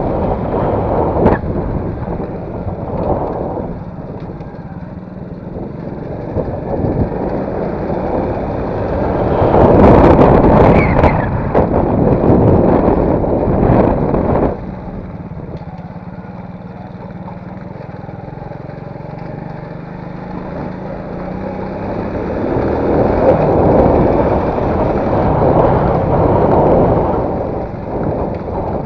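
Motor vehicle running, with road or engine noise that swells louder twice and drops off suddenly about halfway through.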